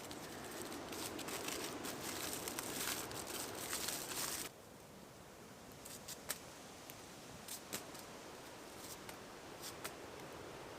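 Aluminium foil being torn and crinkled for about four and a half seconds, a dense crackle full of small clicks, which stops abruptly. After that, only a few faint scattered clicks and taps.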